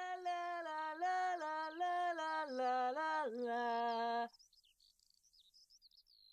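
A wordless tune hummed in held notes that step up and down, stopping about four seconds in. Faint high chirps continue behind it and then alone.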